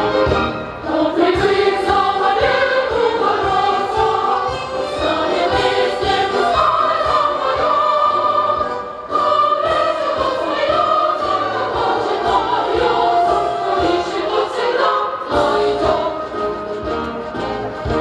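A large mass choir of children and adults singing together with instrumental backing.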